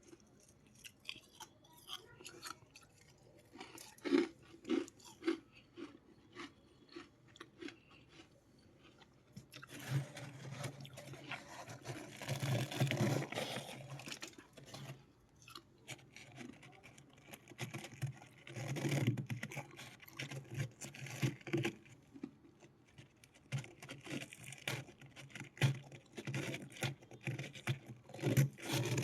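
Close-miked chewing of freezer frost and ice: scattered crisp crunches at first, then several longer stretches of dense crunching.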